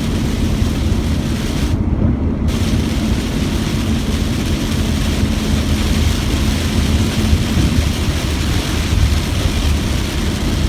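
Steady road and engine noise of a shuttle van driving along, heard from inside the cabin, with a low rumble and a faint hum. The higher hiss cuts out briefly about two seconds in.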